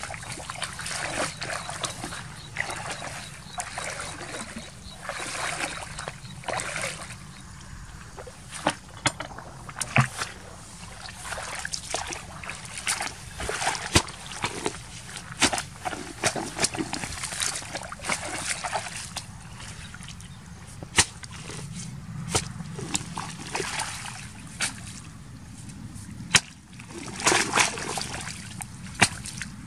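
Splashing and sloshing in shallow muddy water as a person wades and works in it with hands and a hoe, with scattered sharp slaps and knocks.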